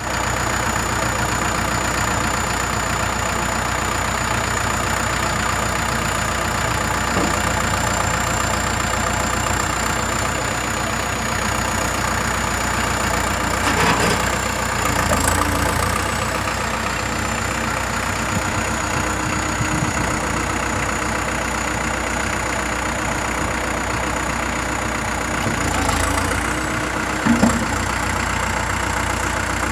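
2008 Terex TX760B backhoe loader's diesel engine idling steadily, with a thin high whine over it. The engine swells briefly twice, about halfway through and near the end, and there is a short knock just before the end.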